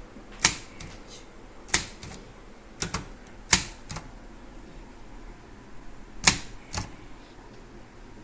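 Brother Deluxe 220 manual portable typewriter typing capital letters one key at a time: about seven sharp clacks of the type striking the platen, slow and unevenly spaced.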